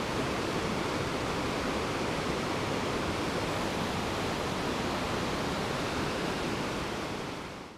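Steady rushing of a mountain river, fading out near the end.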